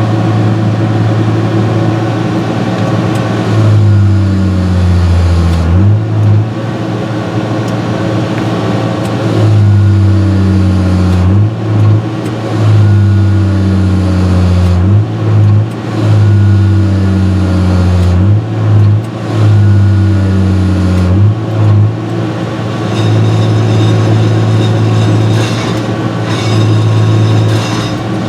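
John Deere 6068 six-cylinder diesel engine of a forestry harvester running loud. Its pitch sags and recovers several times, each drop lasting about two seconds, as if under repeated load.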